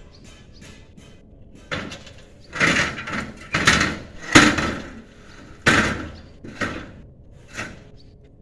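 A run of about eight sudden clattering knocks and scrapes, each fading over about half a second, the loudest near the middle: trays knocking and sliding against an aluminium ladder as they are hauled up.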